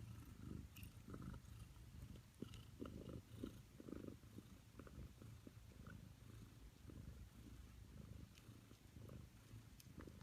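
Mother Ragamuffin cat purring faintly and steadily while her newborn kittens nurse, with small suckling clicks and faint squeaks over the purr.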